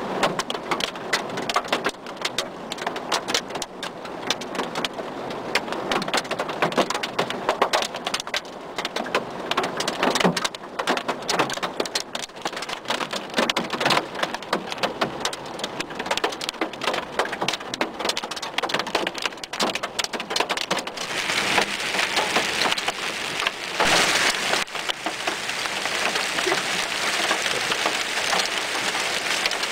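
Heavy hail of 2–3 cm stones and rain pelting down in a violent thunderstorm: a dense stream of sharp hits over a steady hiss, growing heavier about twenty seconds in.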